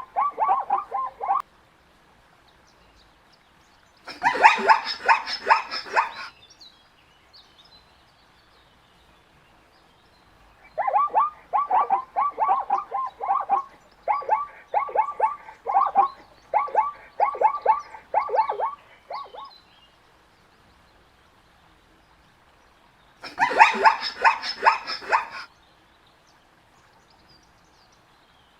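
Zebra calling in bouts of quickly repeated yelping calls, with pauses of a few seconds between bouts. The longest bout runs for about eight seconds in the middle.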